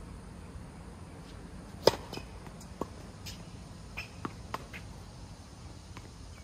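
Tennis ball impacts: one sharp, loud hit about two seconds in, then a run of lighter knocks over the next three seconds, like the ball bouncing and being tapped on a hard court.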